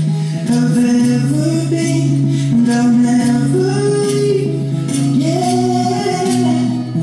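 Acoustic pop ballad playing: a male voice singing long held notes over acoustic guitar.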